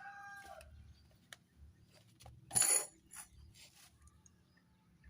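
A rooster's crow trails off in the first half second. Then come a few faint clicks and, about two and a half seconds in, one sharp metallic clink with a brief ring: a metal tool or engine part knocking against metal as the engine work begins.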